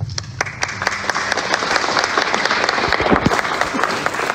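Audience applauding: a dense patter of clapping that swells up about half a second in and then holds steady.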